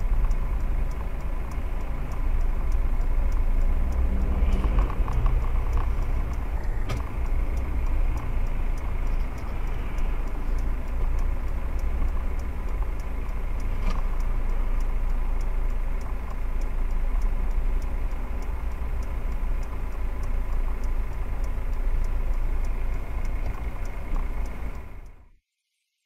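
Steady low engine and road hum of a car idling in traffic, heard from inside the cabin, with a faint regular ticking. There is a sharp click about 7 seconds in and another about 14 seconds in. The sound fades out about a second before the end.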